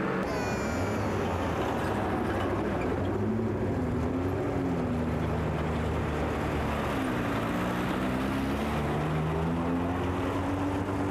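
A motor vehicle engine running, its pitch rising and falling slowly as the engine speeds up and slows down.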